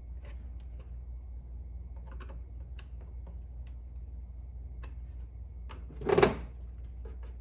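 A hand screwdriver snugs down metal screws into a plastic emblem, giving scattered small clicks and ticks over a steady low hum. One louder, brief knock comes about six seconds in.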